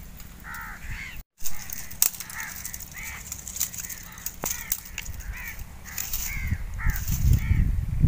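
Crows cawing over and over, short harsh calls coming about every half second, over a low steady rumble, with a few sharp clicks.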